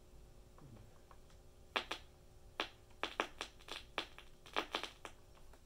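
Fingers pressing the push-button keypad of a 1981 General Electric 4885 clock radio: about a dozen sharp clicks, some in quick pairs, starting a couple of seconds in. The keypad is frozen and the presses don't register properly.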